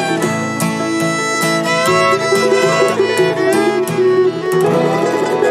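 Acoustic bluegrass string band playing an instrumental passage: fiddle leading with sliding notes over acoustic guitar, mandolin and dobro.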